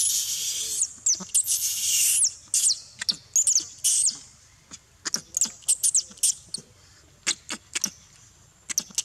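Young macaque screaming: two long, shrill screams in the first two seconds, then a run of short high squeals and chirps.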